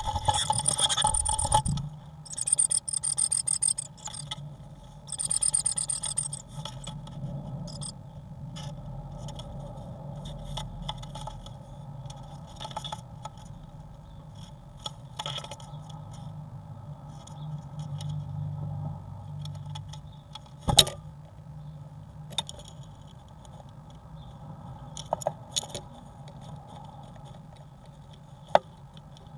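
Great tit scrabbling about inside a wooden nest box: claws scraping and scratching on the bare floor, loudest in bursts over the first six seconds, then quieter scratching with a few sharp taps, one strong about two-thirds of the way in and another near the end, over a steady low hum.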